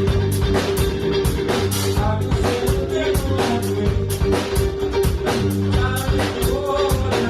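A live funk band playing: a steady drum-kit beat with electric guitars and bass guitar under a synth, and sung vocal phrases coming in twice.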